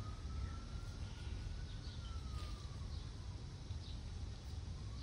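A siren wailing faintly, one tone that rises slowly, falls away and starts rising again near the end, over a low steady rumble.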